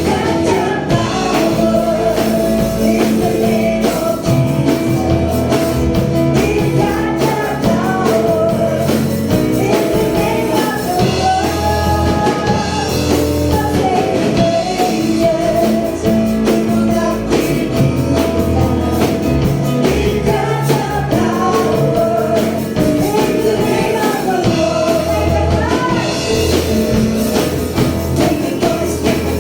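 Gospel praise music: singing over a full band with a steady beat.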